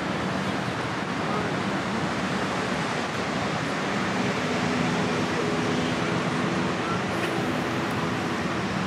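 Steady rush of wind and water along the strait, with a low steady hum joining in about four seconds in.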